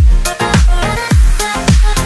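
Background electronic dance music with a steady beat: a deep kick drum that drops in pitch, about two a second, with sharp percussion hits and a synth melody over it.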